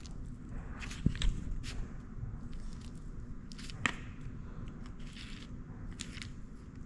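Metal fork pressing and scraping over raw fish fillets on a paper plate, spreading ground pepper: soft scattered scrapes and light taps, with sharper clicks about a second in and near four seconds in, over a low steady hum.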